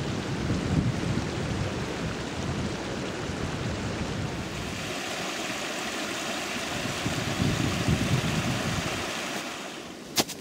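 Wind gusting on the microphone over the steady rush of a mountain stream. Near the end the rush fades and a single sharp crunch sounds as a hiking boot steps into snow.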